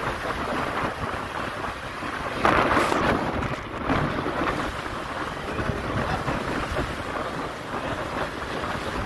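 Wind buffeting the microphone in a continuous rough rush, with a louder blast about two and a half seconds in that lasts about a second.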